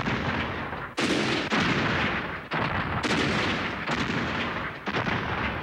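Battle sound effects: a quick series of cannon and gunshots, about six in five seconds, each sudden and trailing off.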